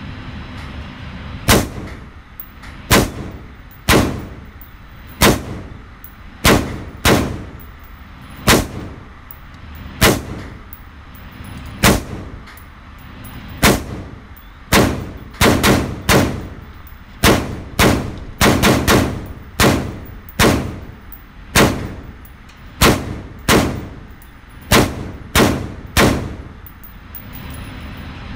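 Pistol shots on an indoor range, fired one at a time at irregular intervals, with a quicker string of shots about two thirds of the way through, nearly thirty in all. Each shot is sharp with a short echo. A steady fan-like hum runs underneath.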